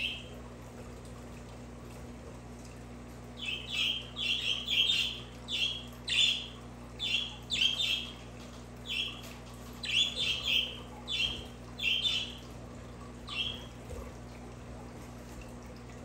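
Budgerigar chirps: one short call, then after a pause a run of about twenty quick chirps, several a second at times, that stops before the end, over a steady low hum.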